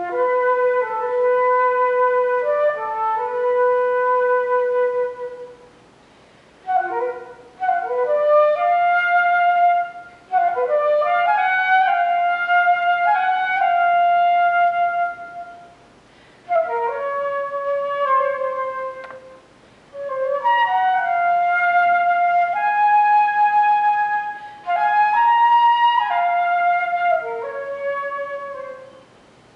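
Solo flute playing an unaccompanied melody in separate phrases of held notes and quick runs, with short breaths between phrases.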